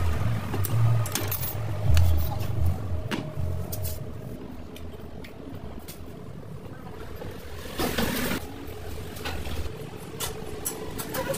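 Scattered clicks and knocks of metal tools and a steering knuckle being handled and set down, over a low rumble in the first few seconds.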